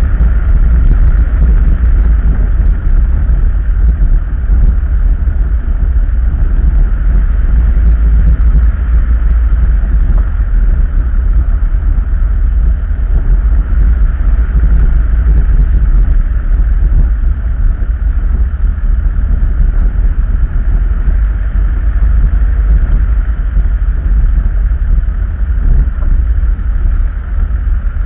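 Vehicle driving steadily along a gravel road: a constant deep rumble of tyres on gravel and the running engine.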